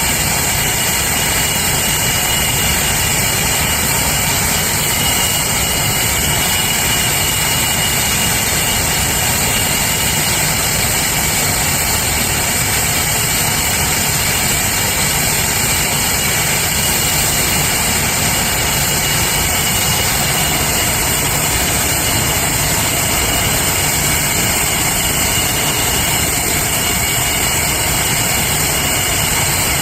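English Electric Lightning jet engines running steadily at low power, a loud even rush with a high whine and hiss over it.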